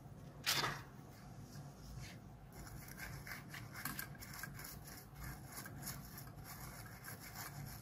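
Oxidized soldering iron tip being scrubbed in a copper wire-wool tip cleaner: faint, rapid scratching from about two and a half seconds in, after a single soft knock about half a second in.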